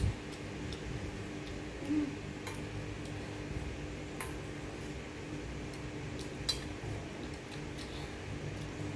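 Cutlery clinking against a plate during a meal: a few sharp, scattered clinks over a steady low hum.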